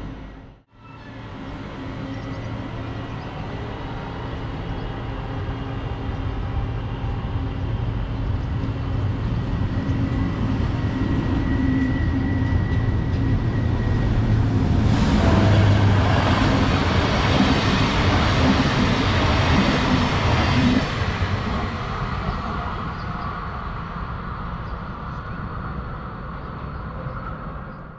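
A train approaching and running past, its low drone building steadily and loudest for several seconds just past the middle, with a clattering rush across all pitches, then fading away.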